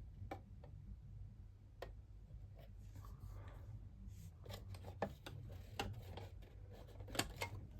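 Scattered light clicks and a short rustle of hands handling the plastic casing and parts of a vacuum cleaner being taken apart, with the loudest clicks about five and seven seconds in, over a low steady hum.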